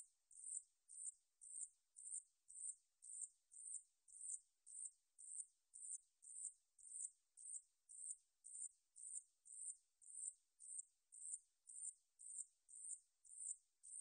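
Ussur brown katydid (Paratlanticus ussuriensis) singing: a faint, even series of short, high-pitched chirps, about two a second, each fading out quickly.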